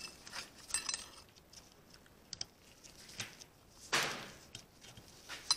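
Light metallic clicks and scrapes of a snap ring being worked into its groove on a drive shaft joint housing, with a brief louder scrape about four seconds in and a sharp click near the end.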